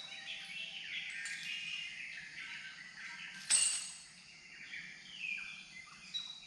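Birds chirping and calling, many short sliding notes overlapping, with one sharp knock about three and a half seconds in.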